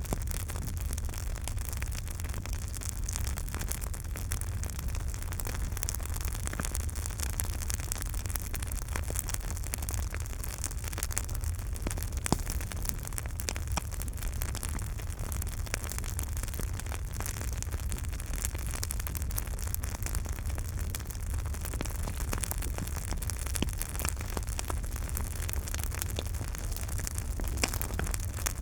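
Campfire crackling and popping: many small sharp cracks over a steady low rumble, with one louder pop about twelve seconds in.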